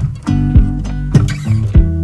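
Background music: plucked guitar with bass and a regular beat.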